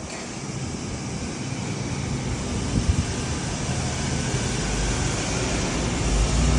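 A vehicle engine running with a steady low rumble and hiss, growing louder over the last couple of seconds.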